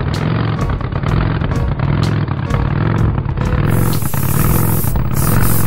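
Background music with a steady beat, mixed with a cartoon vehicle engine sound effect running steadily. A high hiss joins about three and a half seconds in.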